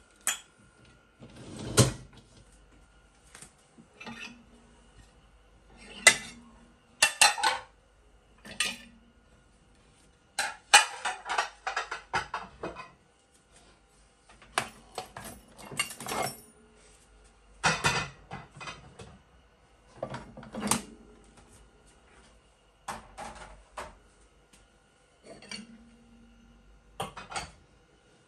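Dishes and cutlery being handled and set down: about a dozen separate clinks and clatters, every second or two, with a longer rattling stretch about ten seconds in.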